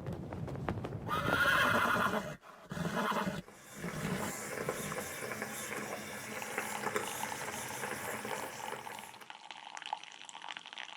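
Sound from several different scenes joined by hard cuts: a louder noisy stretch about a second in breaks off suddenly, a short burst follows, then a steadier background runs until it changes abruptly near the end.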